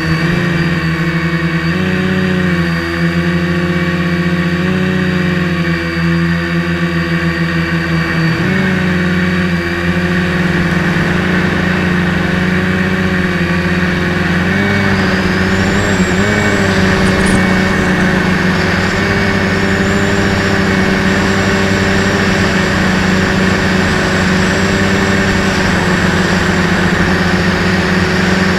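Large quadcopter's electric motors and propellers buzzing in flight, the pitch shifting up and down with throttle in the first half and then holding steadier.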